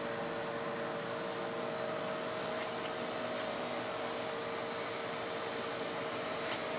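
Steady mechanical hum and fan-like hiss from a drinks vending machine's cooling unit, with a few faint ticks.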